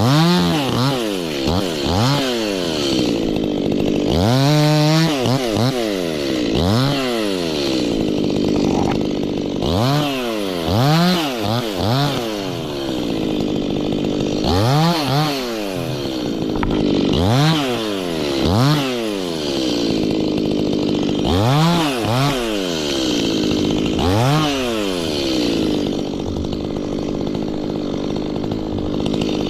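Stihl two-stroke chainsaw being revved hard and let fall back over and over, roughly every two seconds, as it cuts.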